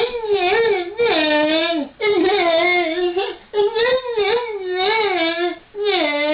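A man's voice imitating a revving engine in a high, whiny falsetto: a series of wavering, drawn-out wails of a second or two each, with brief breaks between them.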